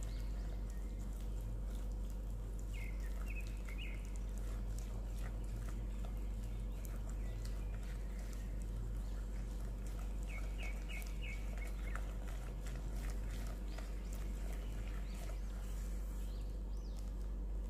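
Wire whisk beating butter and egg yolk in a glass bowl: faint clicks and scrapes against the glass over a steady low hum. A few seconds in, and again about halfway, a quick run of three or four short bird chirps.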